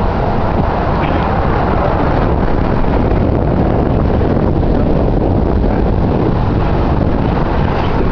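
Wind buffeting the microphone outdoors: a steady, loud low rumble with no breaks or distinct events.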